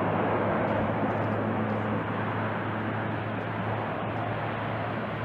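C-130J Super Hercules turboprop engines and propellers on the landing roll: a steady drone with a constant low hum, fading slowly as the aircraft moves away.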